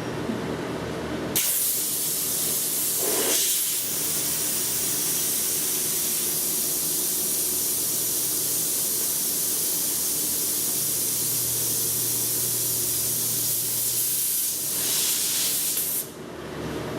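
Compressed air hissing out of a pneumatic circuit in one long steady rush that starts suddenly about a second in and cuts off sharply near the end, its pitch shifting briefly a couple of seconds in and again just before it stops.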